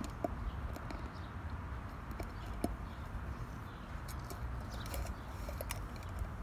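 Labrador puppy chewing a tin can: scattered small clicks and metallic taps of teeth on the can, over a steady low rumble.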